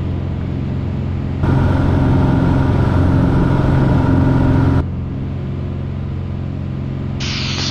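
Piper Cherokee 6's six-cylinder piston engine droning steadily in the cabin. For about three seconds in the middle, the drone is louder and overlaid with a rushing noise.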